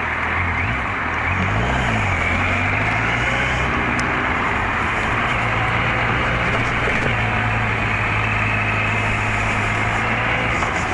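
Motorcycle engine running under way with steady wind and road rush, the engine note rising and falling briefly about a second or two in, then holding steady.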